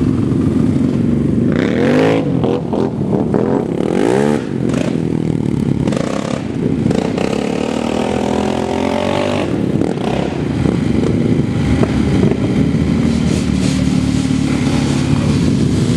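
ATV engine running and revving up and down several times, with some clattering.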